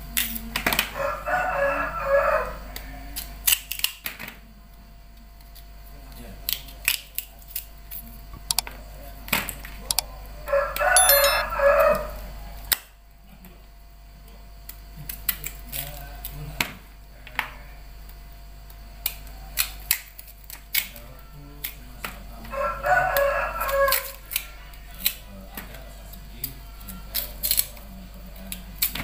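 A rooster crows three times, about ten seconds apart, each crow lasting around two seconds. Between and under the crows come sharp clicks and snaps of a knife cutting peeled cassava into pieces, with the chunks dropping into a plastic bowl.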